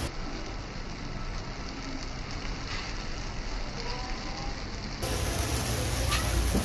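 Dosa batter sizzling on a hot griddle, a steady crackling hiss that grows fuller about five seconds in.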